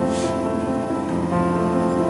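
Instrumental background music with slow, held notes.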